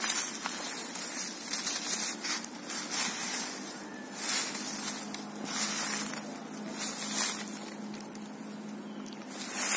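Footsteps crunching and rustling through dry bamboo leaf litter, a crackling step roughly every second.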